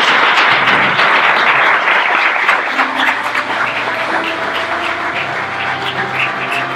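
Audience applauding, a dense applause that thins into scattered, fading claps, with music coming in about halfway through.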